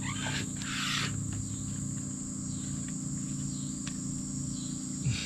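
Insects chirring steadily in a high, thin band, with a low steady hum underneath. A brief rustle is heard about a second in.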